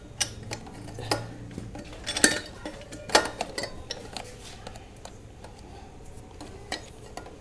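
Scattered metallic clinks and knocks from a stainless steel exhaust header pipe being worked onto a scooter engine by hand, with two sharper knocks about two and three seconds in.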